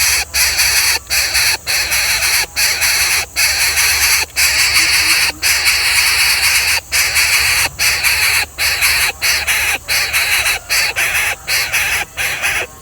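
A bird of prey giving harsh, hissing screeches, one after another with short breaks between them; they stop abruptly near the end.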